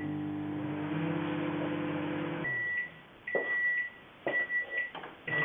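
Microwave oven running with a steady low hum, which cuts off about two and a half seconds in, followed by its high-pitched beeps repeating about once a second, signalling the end of the heating cycle.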